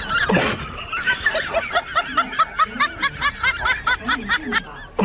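High-pitched rhythmic laughter, a quick run of short 'hee' notes about five a second, ending in a sharp click as the sound cuts off.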